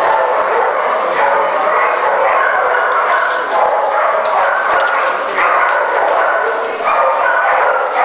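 Border collie barking and yipping insistently to be given its ball, a continuous, loud stream of high calls.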